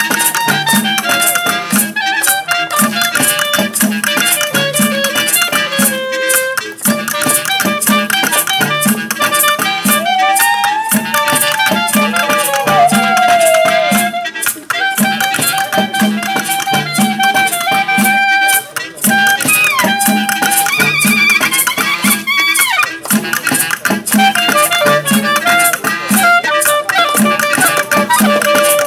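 Lively music with a steady low beat about two a second, constant rattling percussion and a melody line weaving above it.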